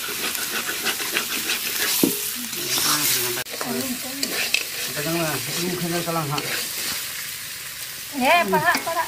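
Meat frying and sizzling in oil in a metal kadai over a wood fire, with a metal spatula stirring and scraping against the pan. Voices come in faintly partway through and again near the end.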